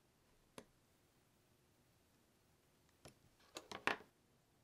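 Faint clicks and taps of small hobby tools and plastic model parts handled on a cutting mat: one sharp click about half a second in, then a quick run of four or five clicks about three seconds in, the last the loudest.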